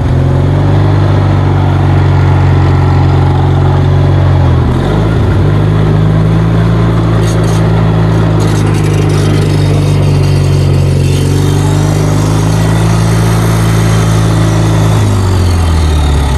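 Kohler 20 HP Magnum engine of a riding lawnmower running hard as the mower is driven in high gear. The pitch rises at the start, dips briefly about five seconds in, holds steady, then falls near the end.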